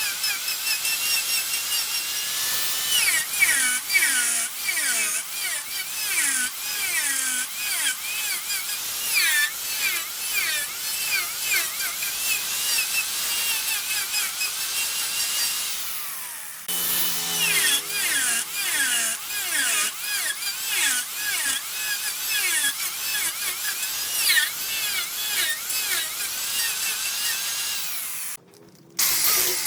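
A turning tool cutting a spinning wooden blank on a wood lathe: a steady high hiss with a wavering, high-pitched squeal. The sound changes abruptly about halfway through and drops away briefly near the end.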